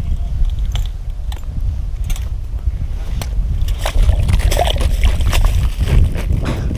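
Wind rumbling on the microphone. From about four seconds in, water splashes and clicks as a fish is lifted by hand out of an ice-fishing hole.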